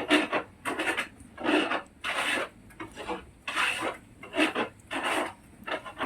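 Repeated rasping scrapes, about a dozen short strokes at an uneven rhythm of one or two a second.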